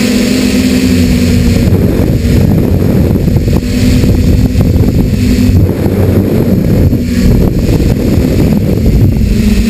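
A quadcopter's electric motors and propellers buzzing, heard from the camera on board, over dense wind rumble on the microphone. The buzz holds steady, then drops under the rumble and comes back a few times as the throttle changes.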